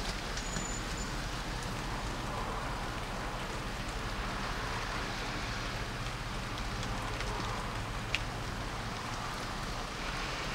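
Steady, even hiss of outdoor background ambience, with one faint click about eight seconds in.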